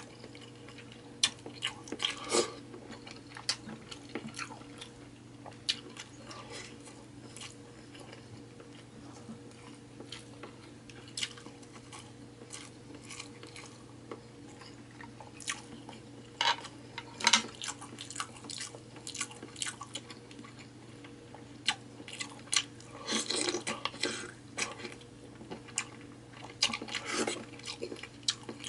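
Close-up wet chewing and biting of seafood-boil food: scattered sharp clicks, smacks and crunches, with denser flurries about two seconds in, around the middle, and twice near the end. A faint steady hum lies underneath.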